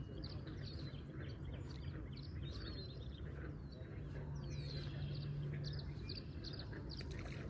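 Birds chirping: many short, quick chirps overlapping one another, over a faint steady low hum.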